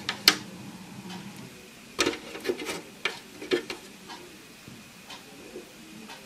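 Plastic clicks and knocks from a Nicer Dicer-type vegetable chopper being handled while slices of pickled cucumber are laid on its cutting grid. One sharp click comes just after the start, then a cluster of knocks about two to four seconds in, with softer taps after.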